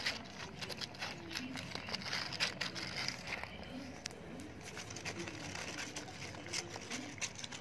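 Pug puppies lapping and licking mixed Cerelac from shallow foil bowls: a steady run of irregular wet clicks and smacks.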